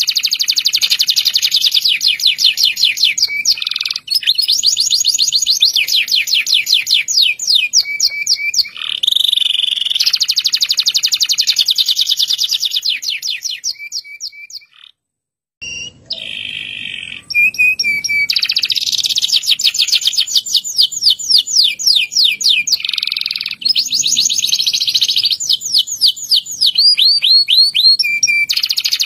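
Local Indonesian canary (kenari lokal) singing a long rolling song: fast runs of rapid, high repeated trill notes, one phrase following another with hardly a pause. There is a short break about halfway through before the song resumes.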